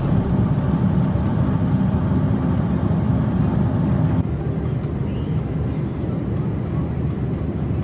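Airliner cabin noise heard from a seat: the steady low rumble of the engines and airflow, with a faint steady hum over it in the first half. About four seconds in it drops abruptly to a slightly quieter level.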